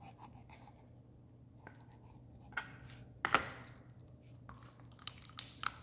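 Knife cutting a raw rabbit carcass on a plastic cutting board, then the carcass being worked apart by hand: quiet wet cutting and handling with a handful of sharp clicks and cracks, the loudest a little past three seconds in.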